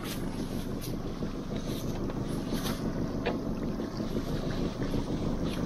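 Steady low rumble and wash of a boat on the water, with wind on the microphone and a handful of light clicks and knocks scattered through it.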